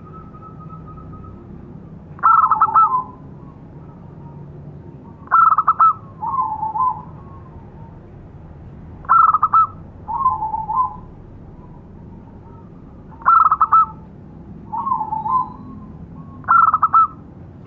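Zebra dove (perkutut) cooing: five calls, each a quick stuttering run of notes followed by a lower rolling coo, repeating every three to four seconds.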